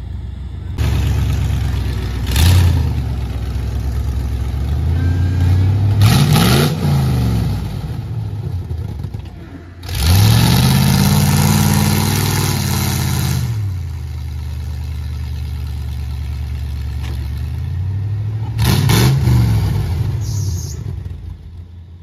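Lifted Ford pickup's engine running under load in deep mud, revved hard four times, the longest rev a few seconds long about halfway through. Its tyres spin and sling mud, stuck in a creek crossing.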